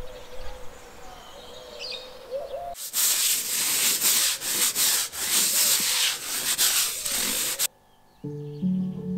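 A long-handled floor brush scrubbing a wet balcony floor, with loud scraping strokes back and forth, starting about three seconds in and cutting off suddenly. Background music begins near the end.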